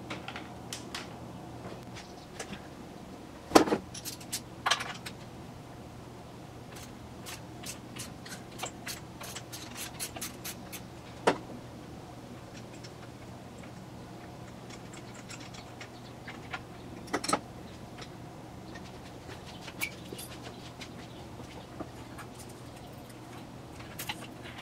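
Metal hand tools clicking and knocking at a car engine's spark plug wells during a spark plug change: a few sharp knocks, and a run of quick, even clicks in the middle.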